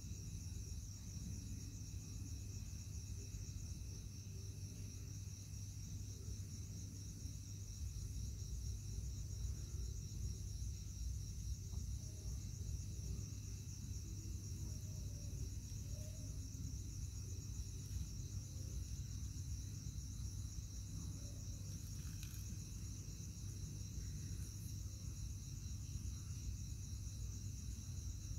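Night chorus of singing insects such as crickets: a steady high trill with a fainter high chirp repeating about twice a second, over a low steady hum.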